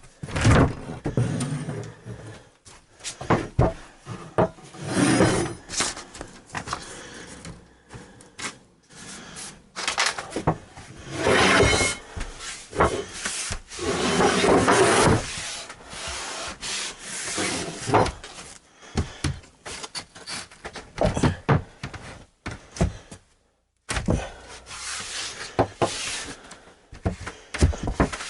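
Particle board subfloor panels being worked into place: wood scraping and rubbing against wood, with irregular knocks and thumps throughout.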